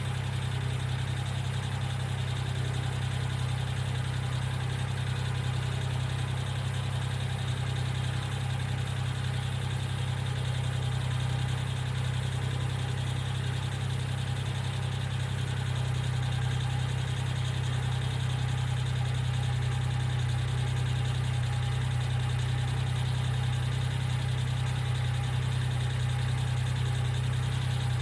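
1995 Geo Metro engine idling steadily, an engine with ticking valve lifters.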